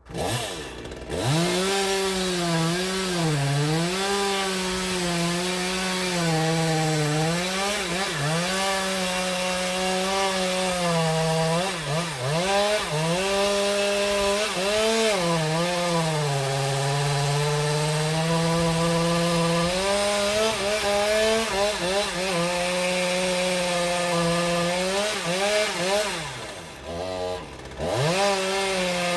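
A two-stroke chainsaw runs at high revs while cutting timber. Its pitch sags and recovers again and again as the chain loads in the wood, and it eases off briefly near the end before revving back up.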